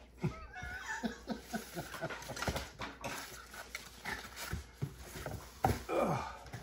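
Hands handling a boxed NAS unit and its packaging: a run of light knocks and clicks, with a few short squeaky pitched sounds near the start and again about six seconds in.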